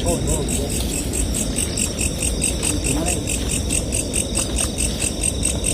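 Crickets chirping in a steady, rapid pulse, about five chirps a second, over a low rumbling background noise.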